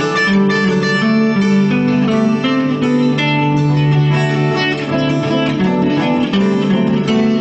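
Acoustic guitar strummed together with a hammered dulcimer struck with hammers, playing an instrumental passage of a song.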